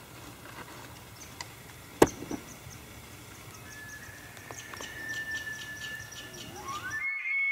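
Bull elk bugling near the end: a whistle that climbs steeply to a high held note, then breaks off and falls away. A single sharp snap about two seconds in.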